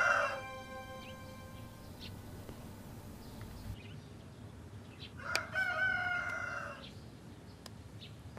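A rooster crowing: the end of one crow fades out at the very start, and a second full crow, about a second and a half long, comes a little past the middle.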